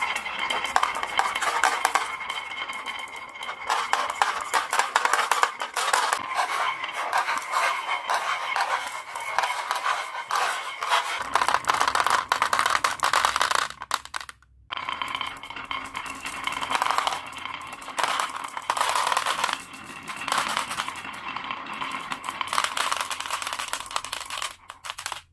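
Glass marbles rolling down the grooves of a wooden zigzag marble run and clinking into the plastic bed of a toy dump truck: a dense, continuous clatter of small clicks. It breaks off briefly about fourteen seconds in.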